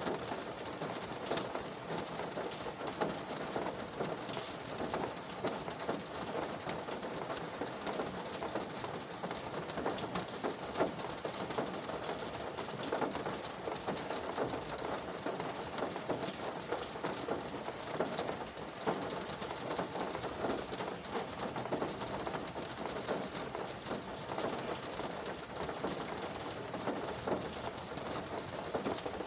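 Rain falling on a car's roof and windows, heard from inside the cabin: a steady patter made of many small drop hits, even throughout.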